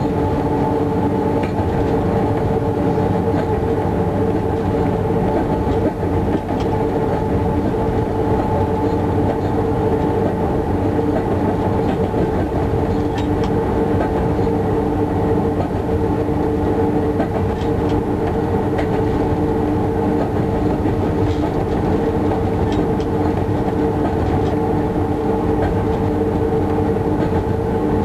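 Electric locomotive running steadily at speed, heard from inside its cab: a constant hum from the traction equipment over the rumble of the wheels on the rails, with occasional clicks from the track.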